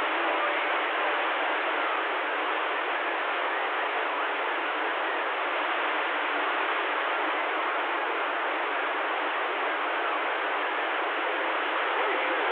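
CB radio receiver hiss: steady static from the speaker on an open channel with no station coming through, heard as a thin, narrow-band rush.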